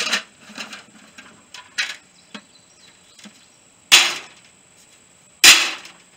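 Metal license plates clattering as they are handled and dropped. A few light clinks come first, then two loud sharp clatters about a second and a half apart.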